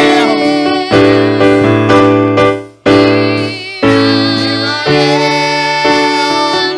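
Electric piano or keyboard playing sustained chords that change about once a second, with a brief break near the middle.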